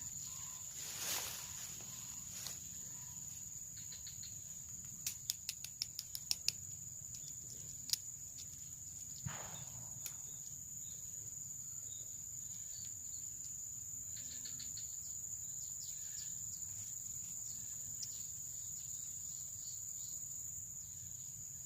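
Steady high-pitched insect drone, with a quick run of sharp clicks about five seconds in and a couple of single clicks a little later.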